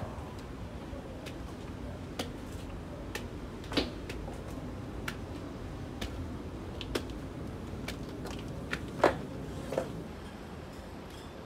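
Scattered light taps and clicks at irregular intervals, about one every second, over a steady low background hum; one around four seconds in and one near nine seconds are the loudest.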